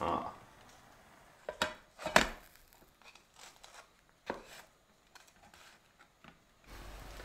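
Wooden spatula clacking and scraping against a small camping frying pan as a grilled cheese sandwich is turned and pressed. It comes as a handful of sharp knocks, the loudest about two seconds in, then lighter ticks, and a low steady hum comes in near the end.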